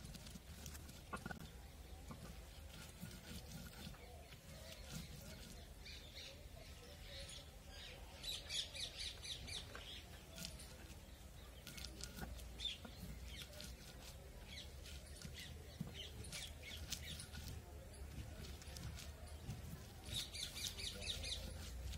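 Whole dried red chillies being crushed on a sil-batta, a stone slab worked with a rocking stone muller, giving a faint scraping crunch. Birds chirp in quick repeated trills twice, about eight seconds in and again near the end.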